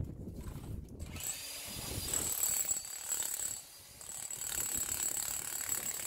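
DeWalt D25604K SDS Max combination hammer running in chisel mode, its scaling chisel rapidly hammering and chipping through built-up ice on a concrete driveway. It is a fast mechanical rattle with a steady high whine. It starts about a second in and stops briefly near the middle before resuming.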